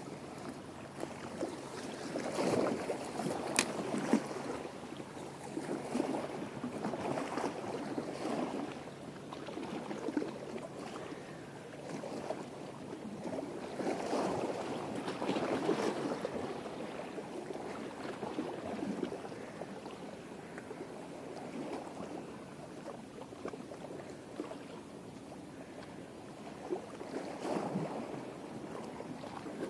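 Small waves washing against the shore, a rushing noise that swells and ebbs every couple of seconds. One sharp click comes a few seconds in.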